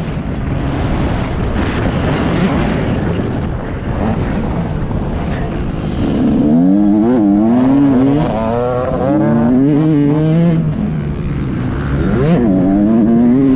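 Motocross dirt bike engine heard through a helmet-mounted camera as the bike is ridden hard. The first half is a steady noisy rush at speed; then, from about halfway, the engine pitch rises and falls again and again with throttle and gear changes, with a sharp rev-up near the end.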